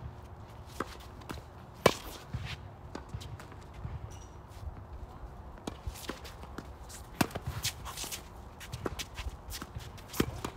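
Tennis rally on a hard court: sharp knocks of a ball struck by strings and bouncing on the court, with shoe steps and scuffs between them. The loudest crack comes about two seconds in, and another racket hit near the end as the near player swings a topspin forehand.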